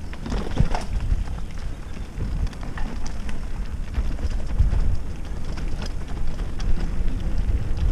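Mountain bike riding fast along dirt singletrack: steady tyre rumble and wind buffeting the microphone, with scattered clicks and rattles from the bike and the trail.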